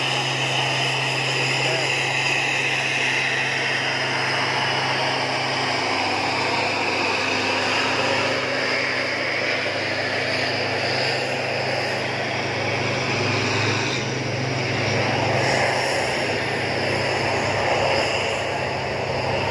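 Heavy truck engines running and traffic passing close by: a steady low engine drone over road noise.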